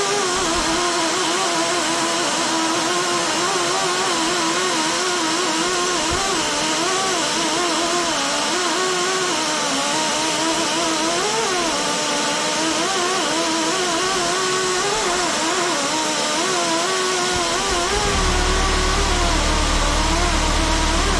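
Worn, overheated pneumatic angle grinder running free: a high whine that keeps wavering in pitch over the hiss of its air exhaust, from a tool with significant bearing play. A low rumble joins near the end.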